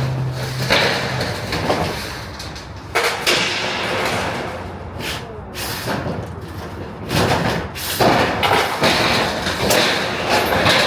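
Demolition work on a shade structure: an irregular series of thumps, bangs and scraping as paneling is pulled off and handled, with the loudest knocks about three seconds in and again around seven to eight seconds and near the end.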